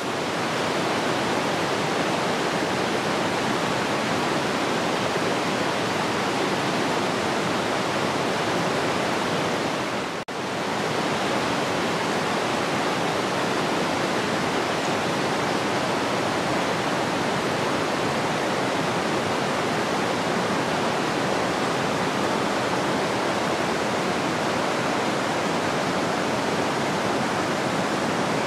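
River water rushing steadily, with a brief dip about ten seconds in.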